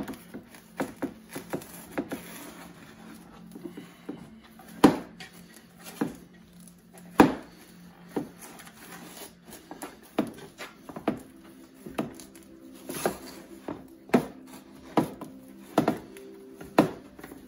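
Hands squeezing and kneading a mash of grated raw and boiled potato in an enamel pot, mixing the poutine râpée dough thoroughly, with irregular light knocks and clicks of hands against the pot, about one a second and a few louder ones.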